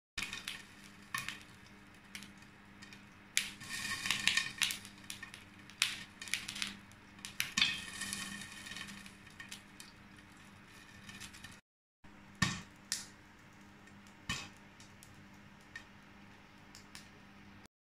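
Popcorn kernels popping in a frying pan under a glass lid: scattered sharp pops that come thick and fast around four and eight seconds in, then thin out to a few single pops.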